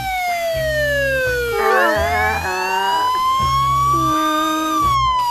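Police siren sound effect in a slow wail: the pitch falls for about two seconds, climbs back up, and starts to fall again near the end, over cartoon background music with a repeating bass line.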